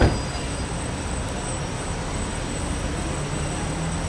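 Steady road and traffic noise from a moving vehicle, with one short sharp thump right at the start.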